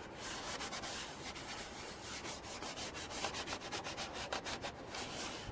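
Oily cloth rag rubbed back and forth over black plastic car trim, a run of quick, irregular wiping strokes.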